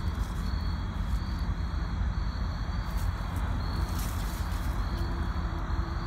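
Insects trilling steadily, one high pulsing song repeating on and off over a constant high tone, above a steady low rumble, with a couple of brief ticks about three and four seconds in.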